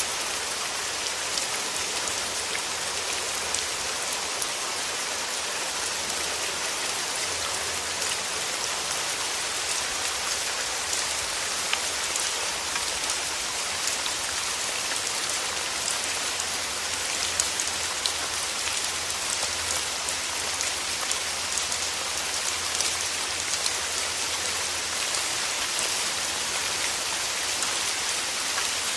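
Steady rain falling, a continuous hiss with many small drops pattering on a surface.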